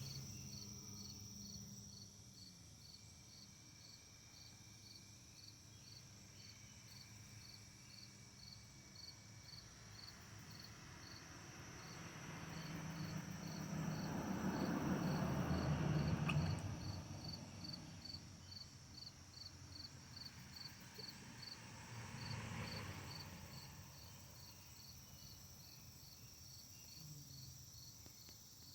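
Field crickets chirping steadily, short high-pitched chirps about twice a second, over a faint outdoor background. Around the middle, a broad rushing noise swells up and fades, with a brief click at its loudest point; a smaller swell follows a few seconds later.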